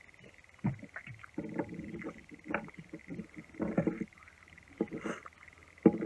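A man's muffled, wordless voice and mouth noises, with a couple of sharp clicks, over a steady faint high whine.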